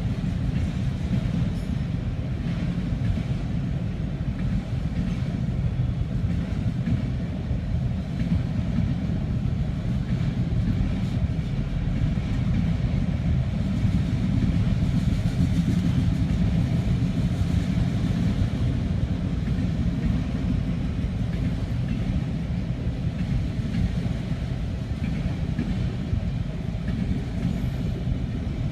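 CSX freight train of autorack cars rolling past, its wheels on the rails making a steady low rumble.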